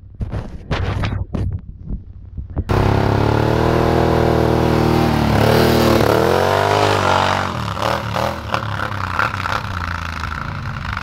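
Scuffing and knocks for the first few seconds, then a Can-Am Renegade 1000 XXC ATV's V-twin engine revving hard while towing a snow tube; its pitch dips and climbs back around the middle, then settles to a steadier, lower run.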